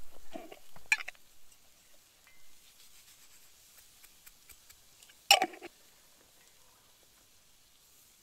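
A few short clattering knocks as cooking things are handled over a bowl of chopped herbs: a small cluster about a second in and a sharper, louder knock with a brief rattle about five seconds in.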